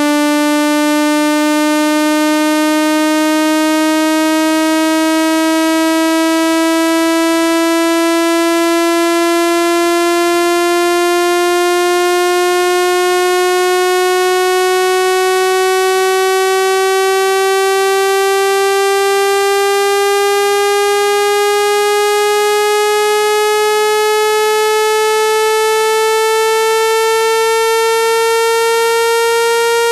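Electronic speaker-cleaning tone: a single loud, buzzy synthesized note with many overtones, held steady and slowly rising in pitch, meant to vibrate water and dust out of a phone speaker.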